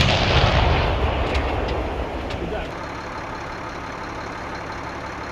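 The echo of an M777 155 mm howitzer shot rolling away and fading over about two and a half seconds, followed by a steady, quieter background hiss.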